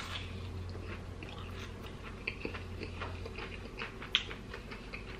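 A person chewing a battered onion ring dipped in ranch, with scattered soft crunches and wet mouth smacks.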